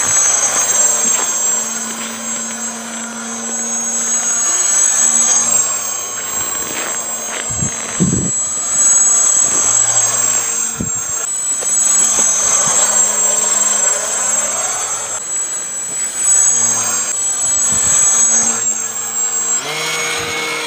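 Electric RC airplane in flight, its Exceed RC 300 Alpha brushless motor spinning a 7x5 APC propeller with a steady high whine over a lower buzz, swelling and fading as the plane passes. A brief low thump comes about eight seconds in.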